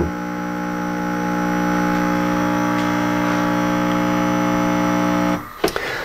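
Breville Nespresso Creatista Plus espresso machine's pump humming steadily as it pulls a lungo, then stopping about five seconds in as the shot ends.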